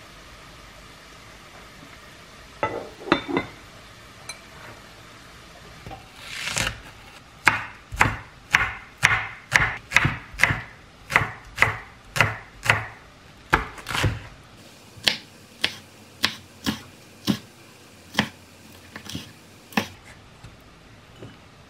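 Kitchen knife mincing green onion on a wooden cutting board: a few light knocks about three seconds in, then steady chopping strokes about two a second from about seven seconds in, spacing out a little after fifteen seconds.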